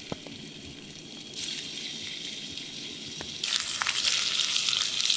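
Food sizzling in a frying pan over a campfire, a steady hiss with a few small pops, getting louder in two steps, about a second and a half in and again past three seconds.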